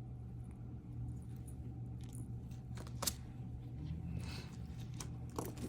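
Faint handling of costume jewelry: a few small clicks and light scrapes of chain and stones being picked over, the sharpest click about three seconds in, over a steady low hum.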